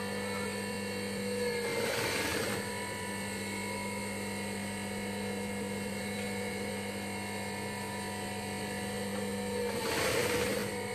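Juki industrial sewing machine's motor humming steadily. Two short, louder runs of stitching come about two seconds in and near the end.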